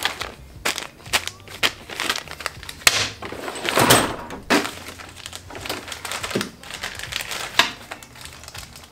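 Handling noise from a small plastic bag of carburetor jets: irregular crinkling and rustling with sharp clicks and taps as small parts are picked up and set down on a workbench.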